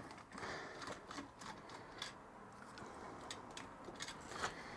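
Faint, irregular small clicks and taps of metal hardware and a hand tool as a barely threaded bolt is worked loose.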